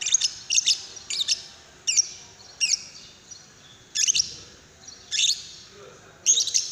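Lovebird giving short, sharp, high-pitched chirps: a quick run of calls in the first few seconds, some in pairs, then single chirps about a second apart.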